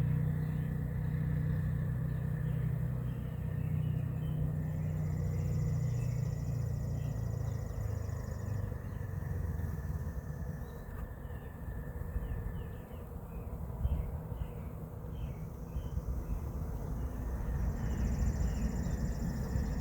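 Low steady hum of Carniolan honeybees buzzing around an open hive during a package installation. Birds chirp through the middle, and a thin high tone comes and goes twice.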